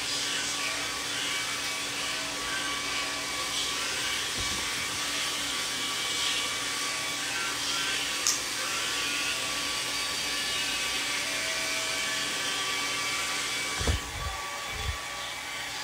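Handheld hair dryer running steadily, an even blowing hiss with a faint steady whine. A few low thumps come near the end.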